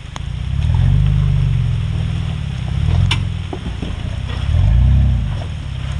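A 4x4 SUV's engine revving up and down in several swells as it crawls over wet rocks, with a few sharp knocks.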